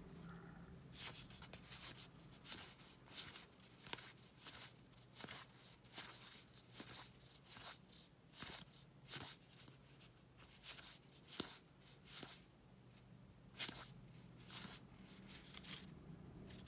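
Paper baseball trading cards being flipped one at a time off the front of a stack, each card a short soft swish, about one to two a second, over a faint steady low hum.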